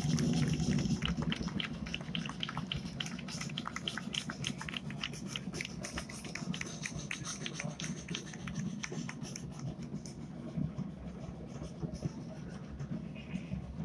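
Side drums of a medieval-costume drum corps beating a fast run of sharp strokes, which thin out near the end.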